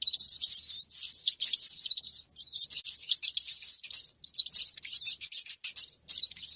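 Rats squeaking in a rapid, high-pitched chattering stream, with a few brief pauses, such as a rat-lure sound track plays.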